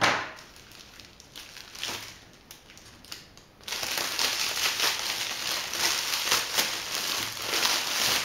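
Foil wrapping of a chocolate Easter egg being pulled open and crinkled by hand. A sharp click at the start and a few scattered rustles give way, about four seconds in, to loud, continuous crinkling.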